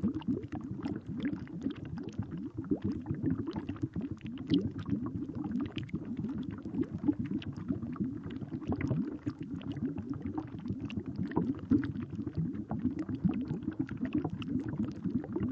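Steady bubbling, gurgling ambient sound bed, low and busy with many small irregular pops and clicks.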